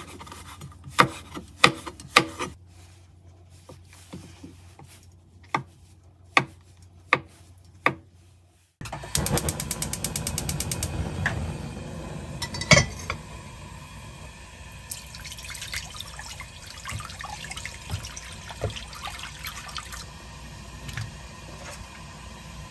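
A chef's knife chopping chili peppers on a wooden cutting board, a handful of sharp separate chops. Then a steady rush of water filling a pan, with a quick run of clicks early on and one loud knock about thirteen seconds in.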